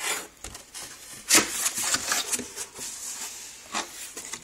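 Cardboard shipping box being opened and handled: flaps rubbing and scraping, with cardboard brushing against the wooden board packed inside. A run of scrapes, the loudest about a second and a half in.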